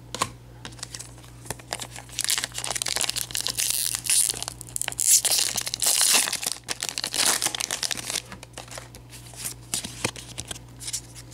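Foil booster-pack wrapper crinkling and being torn open by hand, a dense crackle for several seconds from about two seconds in, then trading cards handled with a few light clicks and rustles.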